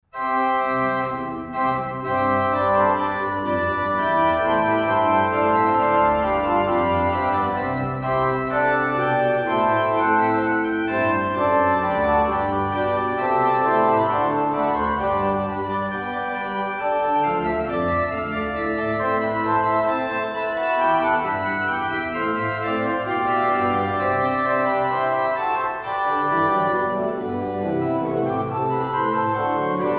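Baroque pipe organ by Joseph Adrian Potier (1758–59) playing a piece with several lines moving at once. It starts at once and runs unbroken.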